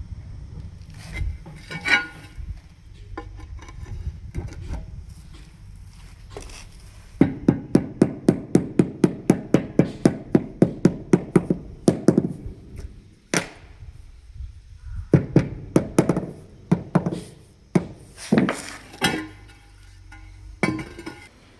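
A square floor tile being tapped down into its mortar bed. There are a few separate knocks, then a fast, even run of about four taps a second for five seconds, then more scattered knocks.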